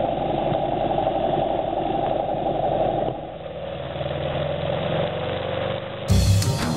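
Motorcycle engine running on the road, heard from a bike-mounted camera with wind noise; the sound changes about three seconds in. Music with a beat comes in near the end.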